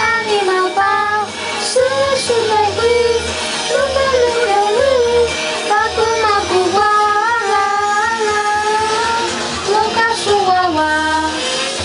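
Teenage girls singing a song in Atayal together over a recorded backing track with a recurring low bass.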